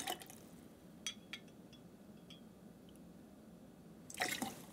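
A few light clinks of a metal jigger against a glass mixing glass and bottle. Near the end comes a short splash of vermouth poured into the jigger.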